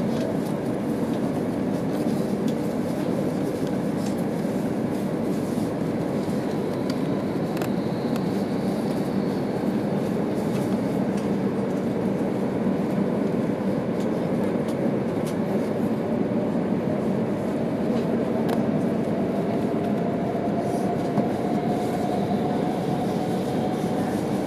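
Interior running noise of an E2 series Shinkansen train: a steady rumble of wheels on rail with scattered faint clicks. In the last several seconds a thin whine slowly rises in pitch as the train gathers speed.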